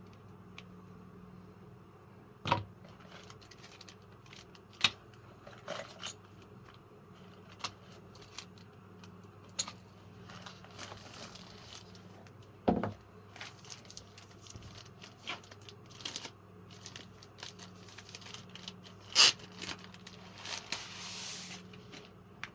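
Sporadic sharp clicks and knocks from a mechanical keyboard being handled, with a brief rustle near the end, over a low steady electrical hum.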